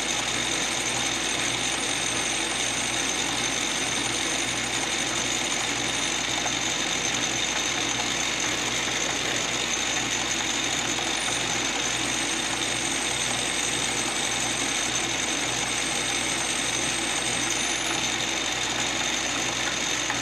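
Small metal lathe running steadily with a steady high whine while a twist drill bores a deep hole into a spinning brass bushing.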